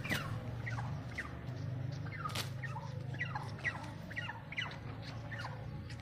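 Turkeys calling: a string of a dozen or more short, high chirps, each falling in pitch, over a low steady hum.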